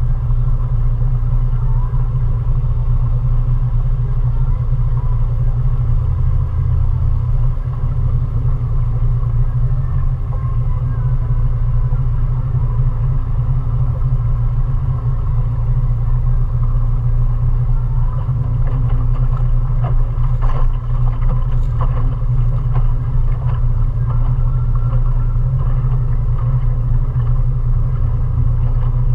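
Mariner 20 hp outboard motor on a small river cruiser running steadily at cruising speed: a constant low drone with a faint steady hum above it.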